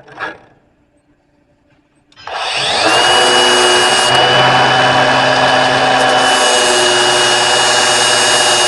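A short knock just after the start, then an electric grinder starts about two seconds in: its whine rises as the motor spins up and holds at a steady high pitch under a loud, even grinding noise, as it works the steel of a newly forged flatter.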